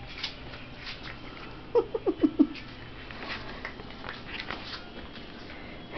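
Maltipoo puppy giving four quick, high yips in a row about two seconds in, each dropping in pitch, with faint taps and clicks around them.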